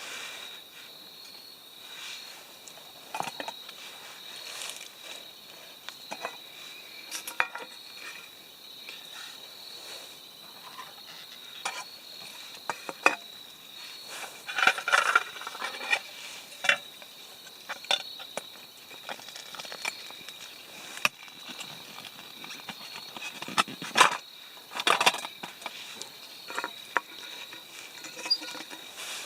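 Insects droning steadily on two high tones, with scattered clinks and knocks of a metal camp pan and utensils being handled.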